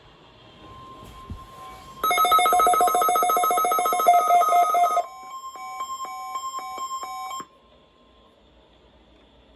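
Electronic alert tones. A faint steady tone is joined about two seconds in by a loud, rapidly pulsing buzzy tone for about three seconds, then by a quieter run of short beeps that cuts off suddenly about seven and a half seconds in.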